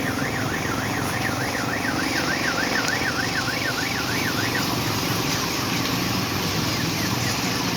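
An electronic siren-like warble, its pitch rising and falling about three times a second, that stops a little past halfway. It sounds over a steady background of outdoor noise.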